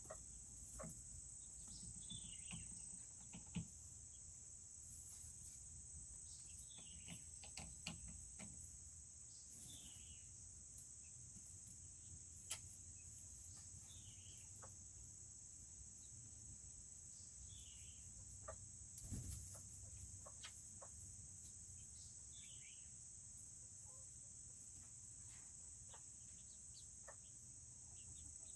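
Crickets trilling in a steady, faint high drone. Over it comes a faint falling chirp every few seconds, with scattered soft clicks.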